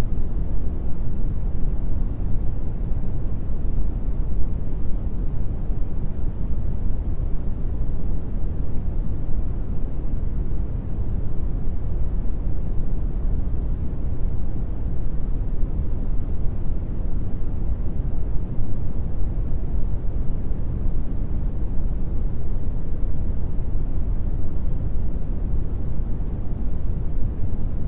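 Brown noise: a steady, even rushing noise, deep and strongest in the bass, thinning out toward the treble, with no changes.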